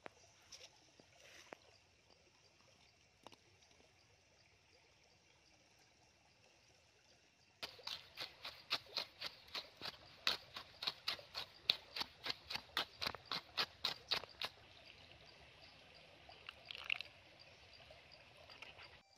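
Wooden pestle pounding a salt-and-chilli sauce mixture in a coconut-shell bowl: a quick, even run of knocks, about four a second, lasting some seven seconds from about a third of the way in. Near the end, liquid trickles into the bowl.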